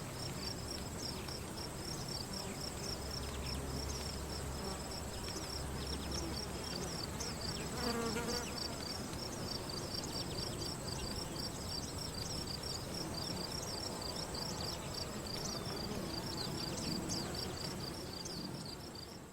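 Crickets chirping in a fast, evenly repeating pattern over a low background rumble, with a thin steady high insect whine above. A short pitched call sounds about eight seconds in, and the ambience fades out at the very end.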